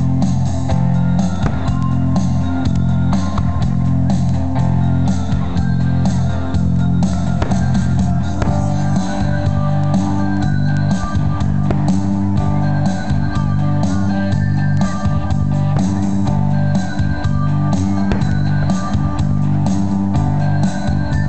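Rock music with guitar, bass and drums, loud and steady, the bass line shifting to new notes about eight seconds in.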